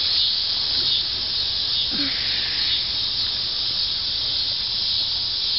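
Insects in the trees droning steadily, an even high-pitched hiss.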